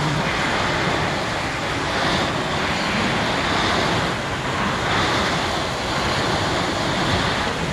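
Fire hose nozzle shooting a strong jet of water: a steady, loud rushing hiss.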